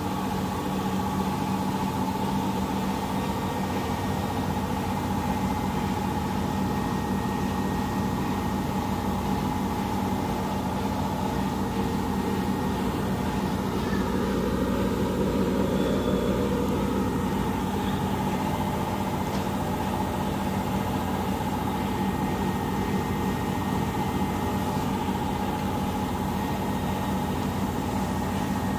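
Empty front-loading washing machine running a quick-wash cycle: a steady motor hum with the drum turning, swelling briefly about halfway through.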